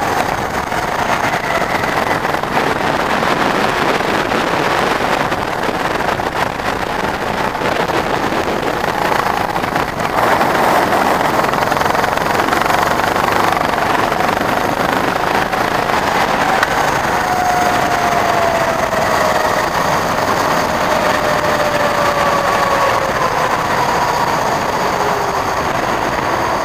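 Go-kart engine running under throttle on track, its pitch sliding down and back up as the kart brakes and accelerates through corners, over a steady rushing noise from wind on the onboard microphone.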